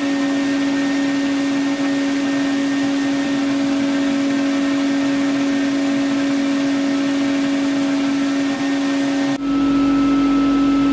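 Steady motor drone from a running OMTech 80 W CO2 laser cutter and its equipment while the laser head moves through a framing pass: one strong constant hum tone over an even whir, unchanging throughout.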